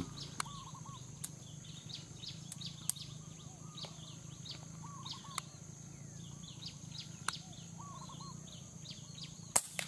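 Birds chirping faintly throughout, then near the end a single sharp crack of an air rifle shot, followed closely by a smaller click.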